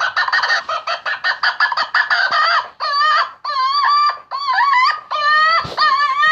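Predator call playing a recorded chicken call: a run of rapid clucks, then from about three seconds in a series of drawn-out, wavering squawks, about two a second, with no low end.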